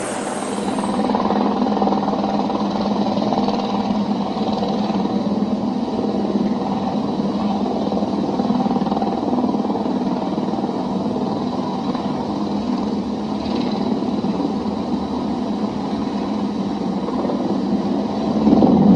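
Single-engine light airplane's piston engine running steadily as the plane taxis, its propeller turning. A sudden loud crash comes near the end.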